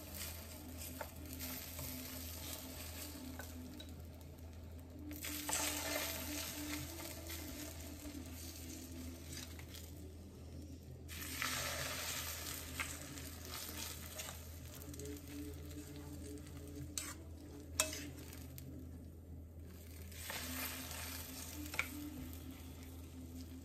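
Egg and vegetable batter sizzling on the hot buttered plates of an electric waffle maker as it is spooned in, the hiss swelling and fading with each spoonful. A couple of light clicks in the second half.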